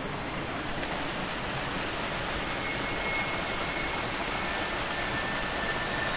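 Fast-flowing polluted ravine stream, foamy with sewage, rushing and splashing over rocks in a narrow channel: a loud, steady rushing of water.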